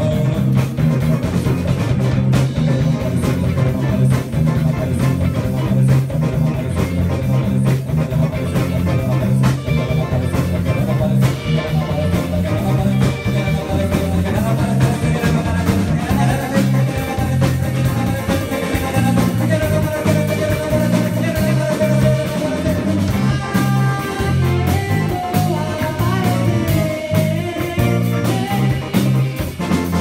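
Live rock band playing: electric guitar, bass, keyboards and a drum kit over a steady, repeating bass line, with a singer's voice on the mic.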